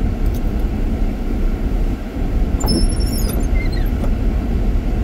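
Steady low rumble of a car driving on a snow-covered road, heard from inside the cabin: tyre and engine noise.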